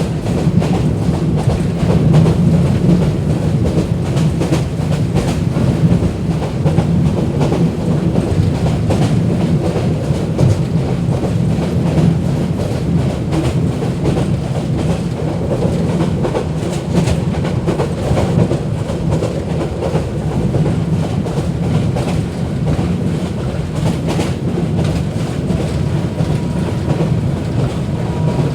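Bangladeshi local train running steadily: a dense, continuous rumble with frequent clicks of the wheels over the rail joints.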